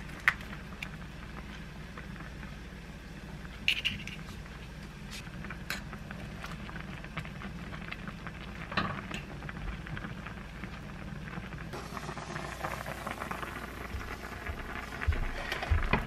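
Soup boiling hard in an earthenware ttukbaegi pot, a steady crackle of popping bubbles. Near the end, a few dull knocks as the hot pot is handled and set down.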